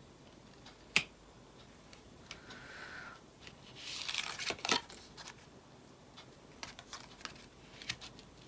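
Tarot cards being handled on a table: a sharp click about a second in, a swishing slide of cards around four seconds, and a scatter of small ticks.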